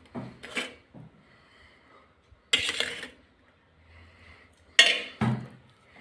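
A spoon clinking and scraping against a dish a few times while spooning potato samosa filling, with quiet between the knocks.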